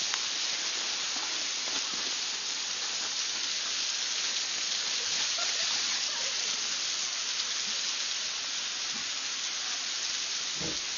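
A steady, even hiss, with one brief faint sound near the end.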